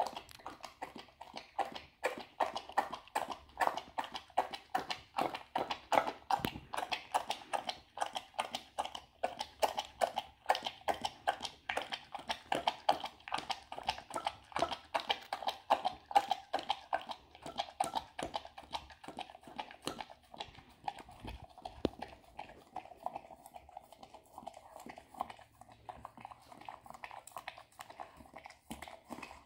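A dog lapping and licking a puppuccino of whipped cream from a ceramic bowl: a quick, steady rhythm of wet tongue laps, a little softer in the last few seconds.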